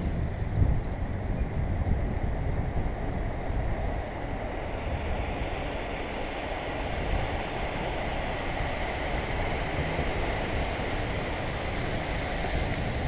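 Wind buffeting the microphone of a bicycle-mounted camera, over the low rumble of bicycle tyres rolling across paving stones.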